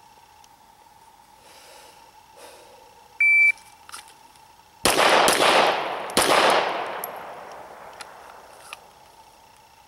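A shot timer gives one short high beep, then, about a second and a half later, a Glock 34 9mm pistol fires three shots: two quick ones about half a second apart and a third about a second later, each ringing out and echoing away. This is a timed draw-and-fire drill: two to the body, one to the head.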